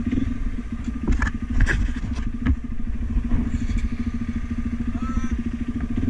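Dirt bike engine running steadily at low speed, with a few sharp knocks and rattles between about one and two and a half seconds in.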